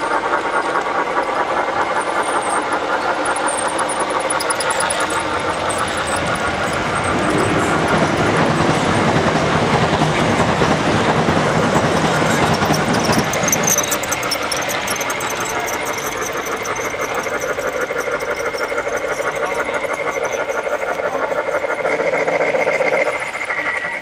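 G-scale model freight train running on its garden-railway track behind a model Challenger steam locomotive, a continuous mechanical running sound of wheels on the track and the locomotive's drive. It is louder for several seconds in the middle and falls away near the end.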